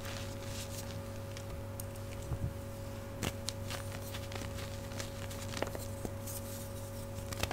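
Gym chalk crushed and crumbled by hand: soft crunching and powdery rustle with a few sharp little cracks, over the steady hum of an old refrigerator.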